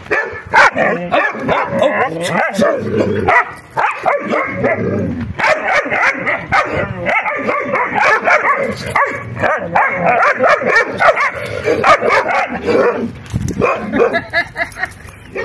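Two puppies play-fighting, giving a near-continuous run of short, high yips and barks with a few brief pauses.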